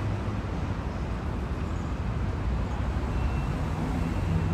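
R160 subway train approaching slowly on elevated steel track: a steady low rumble of wheels on rails. A faint high tone enters about three seconds in.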